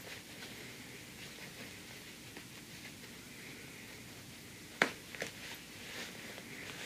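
Faint rustling of fabric being handled as a sewn stocking is pulled right side out through an opening in its lining, with a sharp tap just under five seconds in and a smaller one just after.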